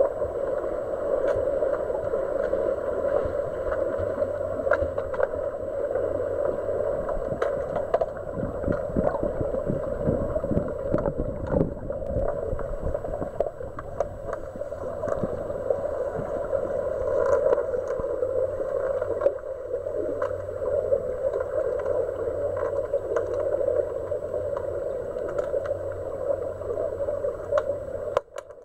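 Muffled underwater sound from a camera submerged in a pool during an underwater hockey game: a steady rush of water and bubbles with scattered clicks and knocks from sticks and puck on the pool floor.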